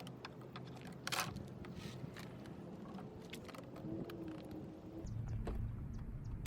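Scattered light clicks and clinks of hand tools and sockets on car bumper fasteners, with a low rumble coming in about five seconds in.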